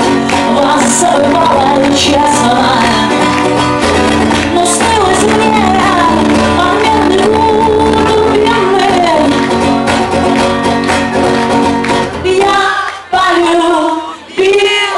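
Live female vocals over a strummed acoustic guitar, amplified through a PA. Near the end the strumming breaks off and the voices carry on alone.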